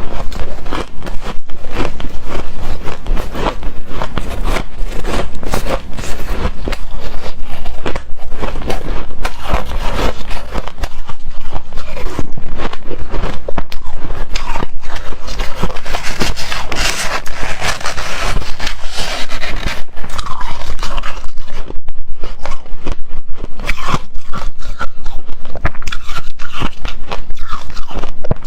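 Hard, frosty shaved ice being bitten into and scooped, a dense unbroken run of crunchy, squeaky crunches and scrapes.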